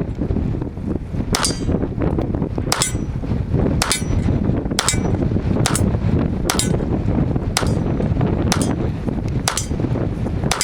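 Semi-automatic pistol firing a string of about nine shots, roughly one a second, some followed by a brief metallic ring, working through a magazine while the shooter tests whether the gun is fixed. Wind rumbles on the microphone throughout.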